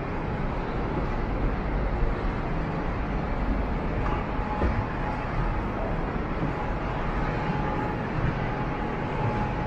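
Steady urban street ambience: a continuous low rumble of traffic with no single event standing out, and a faint steady tone joining about four seconds in.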